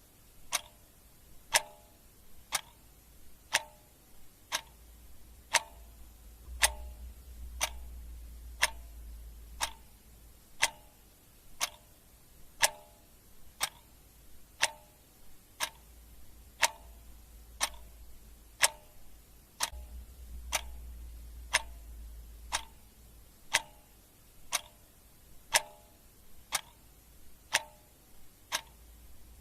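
Clock ticking steadily, about one tick a second, the ticks alternating slightly in loudness, over a faint low rumble that swells twice.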